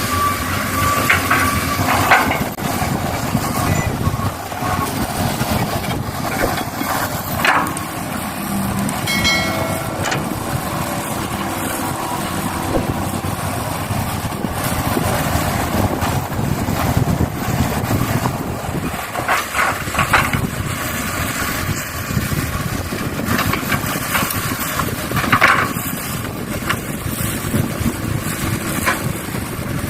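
Engine sound of excavators and a dump truck at work, running steadily, with a few sharp knocks now and then.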